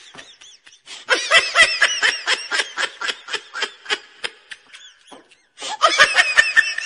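High-pitched giggling laughter: a run of quick laugh pulses, about five a second, lasting some four seconds, then a second shorter burst near the end. There is no crowd or street noise behind it, as with a comic laugh sound effect laid over the picture.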